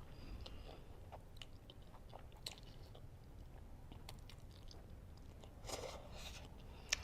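A person chewing spicy noodles and egg close to the microphone: soft chewing with scattered small wet clicks, and a brief louder noisy sound about six seconds in.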